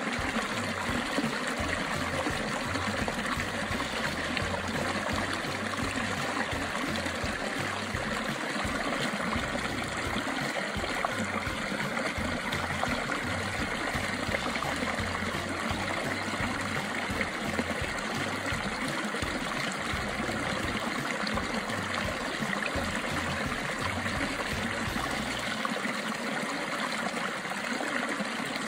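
Running water: a steady, even rush like a stream or brook flowing.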